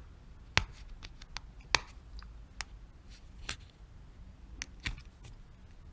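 Fingers handling a Polar FT2 watch's plastic case and rubber strap, making irregularly spaced sharp clicks and taps.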